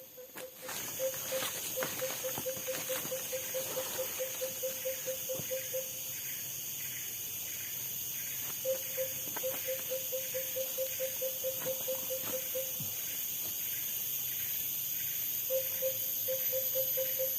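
Tropical forest ambience: insects droning steadily at a high pitch, and a low call of short repeated notes, about four or five a second, coming in three runs of several seconds each.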